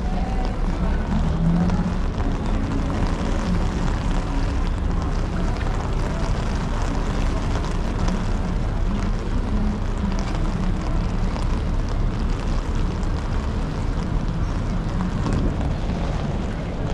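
Steady wind buffeting the microphone, a deep rumbling rush with a faint low hum of an engine under it.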